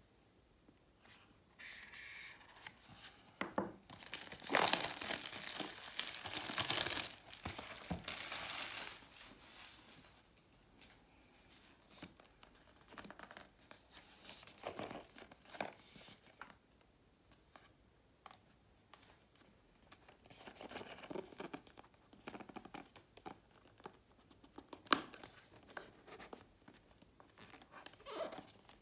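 A cardboard product box's seal being slit with a hobby knife and pulled open, loud scraping and tearing for several seconds. Then quieter rustling and sliding of cardboard as the box is taken apart and handled, with one sharp tap near the end.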